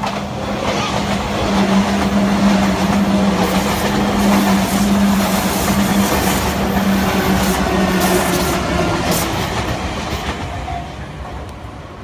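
Sotetsu 8000 series electric train passing over a level crossing without stopping: a rush of wheel and rail noise with clacks over the rail joints, building as it arrives and fading away near the end as the last car clears. The crossing warning bell rings steadily through the pass and stops near the end.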